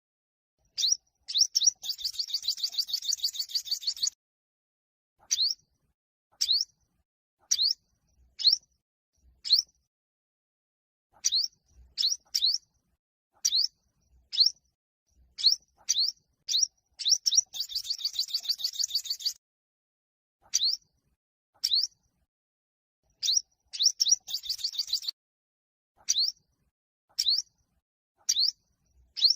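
Olive-backed sunbird singing: sharp, high notes sweeping downward, given singly or in quick pairs about once a second, broken three times by a fast, rapid-fire trill lasting one to two seconds.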